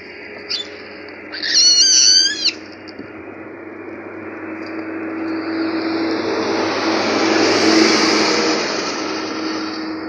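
A baboon gives a shrill, wavering squeal about a second and a half in, lasting about a second. Then a vehicle passes on the road, its sound swelling to a peak near the end and fading.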